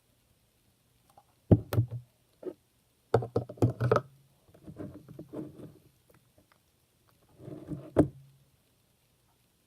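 Wet clear slime, activated with Tide detergent and still liquidy, squished and kneaded by hand, in four bursts of sticky clicks and smacks.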